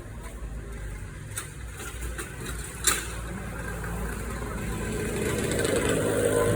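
A motor vehicle's engine running on the street, growing louder in the second half as it comes closer. There is a sharp click about three seconds in.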